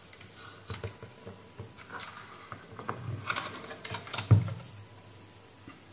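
Handling noise as a car instrument-cluster circuit board is lifted, turned over and set down on a workbench: scattered light clicks and knocks, the loudest a thump a little over four seconds in.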